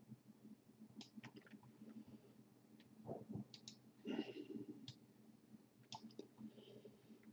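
Faint, irregular computer mouse clicks, scattered singly and in quick pairs, over a low steady hum, with a couple of soft low noises just past the middle.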